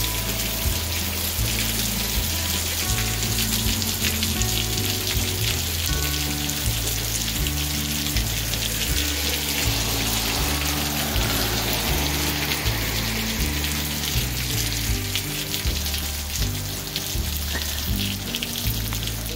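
Heavy rain mixed with hail pattering down steadily on the ground and street. Background music with a low bass line plays underneath.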